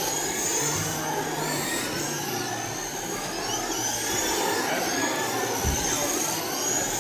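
Several RC race cars' motors whining as they lap the track, the high pitch rising and falling again and again as they speed down the straights and slow for the corners. A short low thump about six seconds in.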